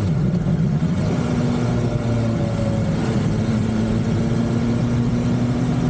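BMW S1000XR inline-four motorcycle engine running while riding. Its pitch shifts and glides back up near the start, then holds steady, under a steady rush of wind noise.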